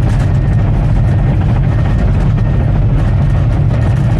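Bulldozer's diesel engine running steadily under load while back-blading.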